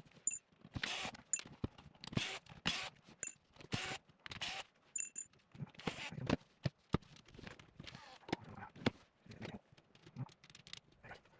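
Irregular clicks, scrapes and handling knocks of a T10 Torx screwdriver turning out screws while a cordless rotary shear's housing is taken apart.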